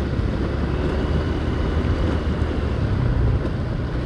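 Motorcycle on the move: steady engine and road noise, heaviest in the low rumble, with wind on the rider's microphone.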